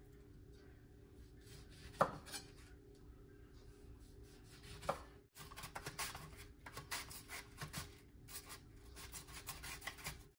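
A knife slicing a lemon on a wooden cutting board, with a couple of sharp knocks. About halfway through, this gives way to an onion half pushed back and forth over a stainless steel mandoline slicer in quick strokes, several a second.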